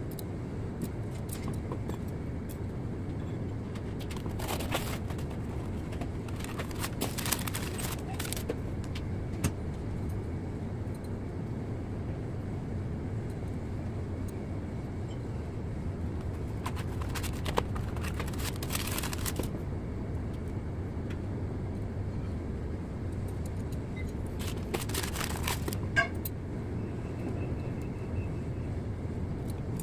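Steady low rumble of background noise, with short bouts of metallic scraping and clicking, four of them, as piston rings are worked by hand onto a Caterpillar 3406C diesel piston; a sharp click comes near the end.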